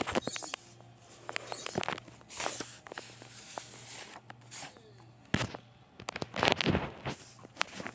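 Handling noise: irregular rustling, rubbing and sharp knocks as paper cutouts and the phone are moved about, busiest in the second half.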